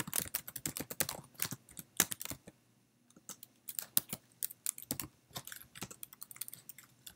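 Typing on a computer keyboard: a quick, irregular run of keystroke clicks with a short pause about two and a half seconds in.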